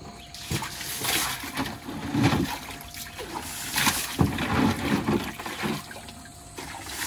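Muddy, sediment-laden water sloshing and splashing as a plastic tub is dipped into an IBC tote grow bed, lifted out full and emptied, several uneven surges a second or so apart. It is the old sediment being bailed out of the bottom of the bed.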